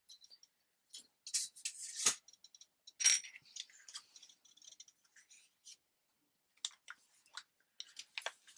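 Paper rustling and light clicks and taps from handling sheets and tools on a table, with louder rustles about a second and a half in and again about three seconds in, then scattered small ticks.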